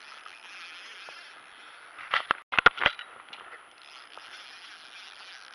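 Small ultralight spinning reel being cranked, giving a steady whir as line is wound in, with a quick run of sharp clicks a little past two seconds in.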